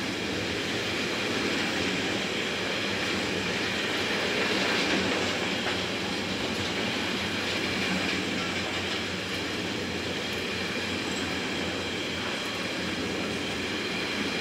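Intermodal freight train of pocket wagons carrying semi-trailers rolling past, a steady rumble of steel wheels on the rails with faint steady high ringing tones over it.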